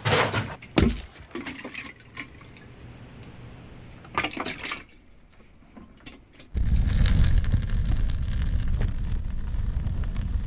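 Liquid sloshing and splashing from a plastic fuel container in scattered bursts, with a knock just under a second in. About six and a half seconds in, a loud, steady, deep rush of noise starts suddenly.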